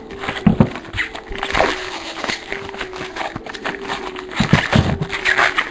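Crinkling and rustling of a foil trading-card pack being torn open and its cards handled: irregular crackles, busiest near the end.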